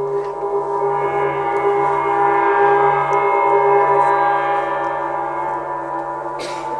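Ambient stage music: a sustained, ringing drone of several held tones that swells and then eases off, with a brief hiss near the end.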